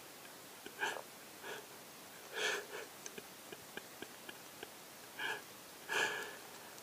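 Pet hedgehog snuffling and sniffing in five short bursts, the second-to-last and last loudest, with faint wet clicks as it licks a door frame, the lead-up to self-anointing.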